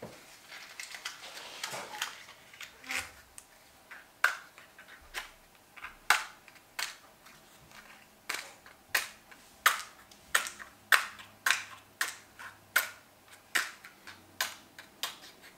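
A match being struck again and again against the striker strip of a matchbox, a sharp short scratch about one and a half to two times a second, without the match catching. The first few seconds hold softer, denser scraping before the regular strikes begin.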